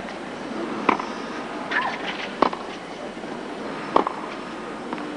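Tennis ball struck back and forth by rackets in a baseline rally: three sharp hits about a second and a half apart.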